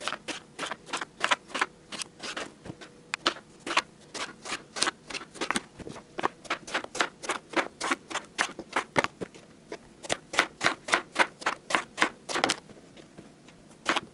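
Knife slicing eggplant into thick rounds, each cut ending in a sharp tap on a plastic cutting board: a steady run of about three taps a second, broken by a few short pauses.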